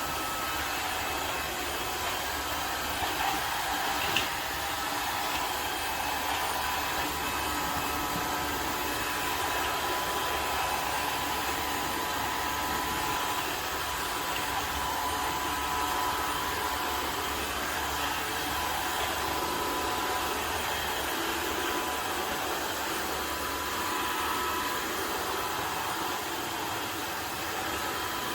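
Tineco Floor ONE S5 cordless wet-dry vacuum mop running steadily, a whirring motor with a faint high whine, and a single click about four seconds in.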